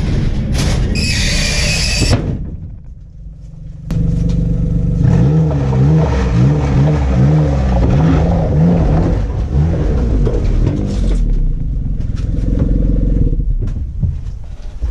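Snowmobile engine running, its pitch rising and falling as the throttle changes, with a brief drop in level a few seconds in before it jumps back up abruptly.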